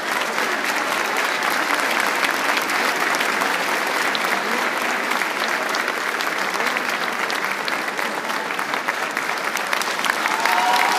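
Large audience applauding, a dense, steady mass of clapping.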